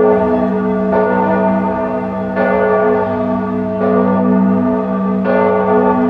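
Church bell tolling, struck four times at an even pace of about one stroke every second and a half. Each stroke rings on into the next over a steady low hum.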